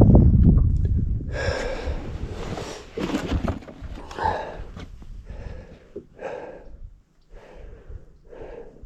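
Wind buffeting the microphone for about the first second, then heavy breathing: a short breathy huff about once a second.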